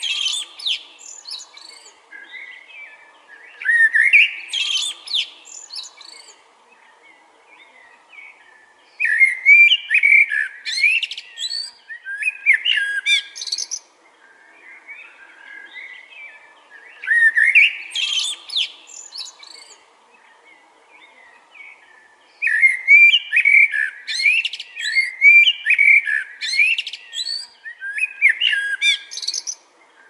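Male common (Eurasian) blackbird singing: mellow fluting phrases, each ending in a high, squeaky twitter, delivered one at a time with pauses of a few seconds between them. A faster run of phrases comes in the last third. Fainter chirping fills the gaps.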